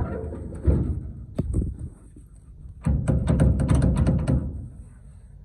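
Toyota pickup tailgate clunking and rattling on its worn, loose hinge pins: a thud about a second in, then a quick run of metal clanks lasting about a second and a half.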